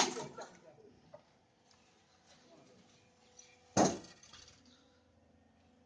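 Two sharp metallic clanks about four seconds apart, each ringing out briefly, with a faint steady hum between them.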